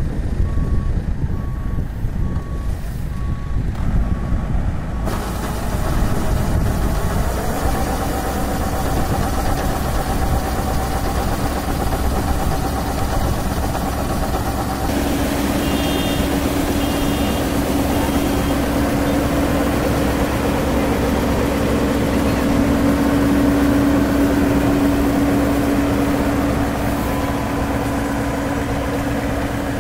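A GAM tracked combine harvester's diesel engine and machinery running steadily, with a loud, heavy mechanical drone. A repeated electronic beep sounds for the first few seconds, and a steady hum comes up more strongly about halfway through.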